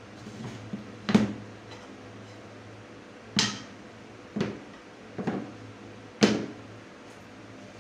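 Plywood strips knocked and set down one at a time on a wooden workbench: about five sharp wooden knocks, roughly a second apart, over a low steady hum.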